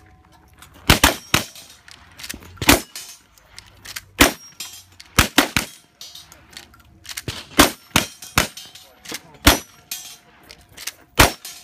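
Rifle shots from two shooters racing against each other with lever-action rifles: about a dozen sharp cracks, unevenly spaced, some in quick pairs less than a second apart.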